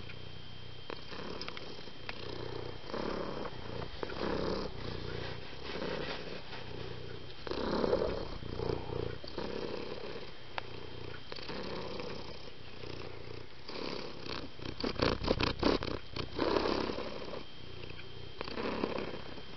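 Domestic cat purring up close, a steady low rumble that swells with each breath about every two seconds. About 15 seconds in, a quick run of sharp clicks or rustles is briefly louder than the purr.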